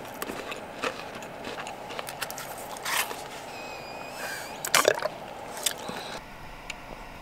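Small crisp crunches and clicks of a chocolate-coated Pepero biscuit stick being chewed, then sipping through the straw of a paper apple-juice box, with a louder crackle of the box being handled about five seconds in.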